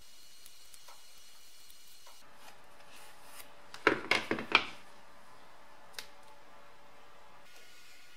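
Hard plastic heater vent flaps being handled and set down on a wooden workbench: light rubbing, then a quick cluster of knocks about halfway through and a single click a couple of seconds later, over faint steady room noise.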